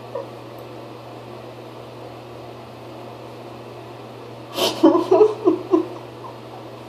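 A steady low hum, then about four and a half seconds in a quick run of five or six short vocal sounds from a woman, lasting about a second and a half.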